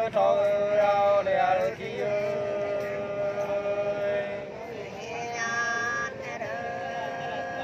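Unaccompanied Nùng sli folk singing: voices draw out long, slow notes with wavering, gliding ornaments. A higher voice comes in about five seconds in.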